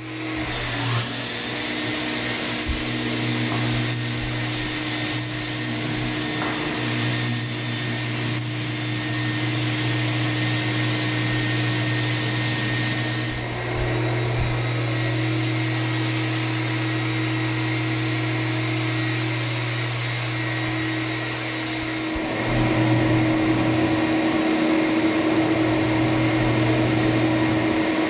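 Rotary floor buffer screening a finished hardwood floor between coats: a steady electric motor hum with a vacuum running for the dust. The sound shifts abruptly twice, about halfway and about three-quarters through.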